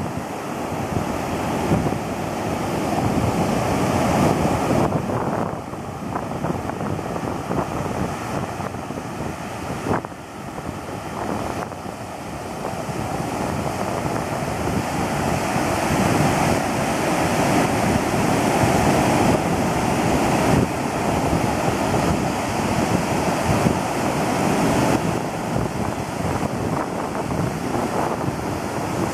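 Ocean surf breaking and washing up a sandy beach, a steady rush that rises and falls every few seconds, with wind buffeting the microphone.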